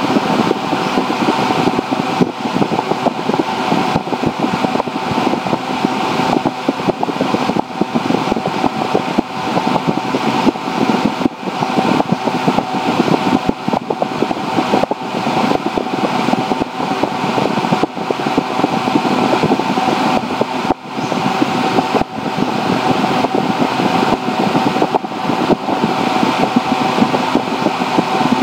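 Loud, steady machine noise like a fan, with a constant hum and an even hiss.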